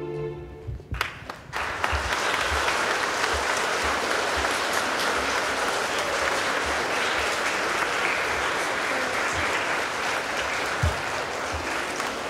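Audience applauding, starting about a second and a half in and holding steady.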